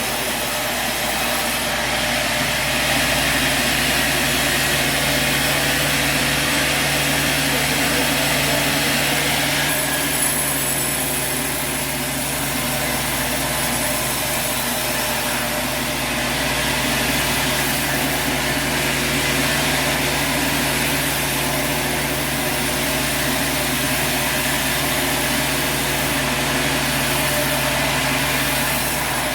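Sawmill machinery running steadily with an engine-like drone; a high hiss is stronger for the first ten seconds or so, then eases.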